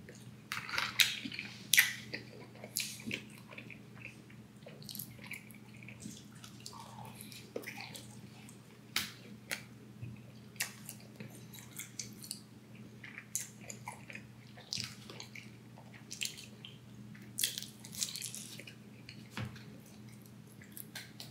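Close-up mouth sounds of a person chewing and biting food: irregular wet smacks and small crunches, several a second at times, over a steady low hum.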